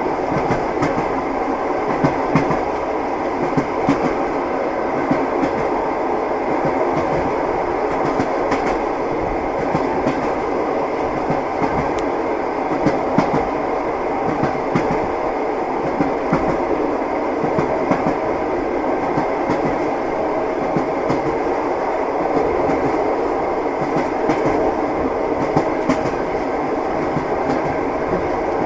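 Train wheels clattering over the rails, heard from inside a passenger compartment: a steady rumbling rattle with short knocks every second or two.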